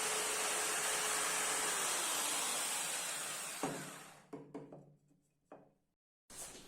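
Electric drill motor running at speed with a steady whine, then switched off about two seconds in and winding down in a falling whine. A sharp knock and a few lighter clicks follow as it stops, and the sound cuts off abruptly near the end.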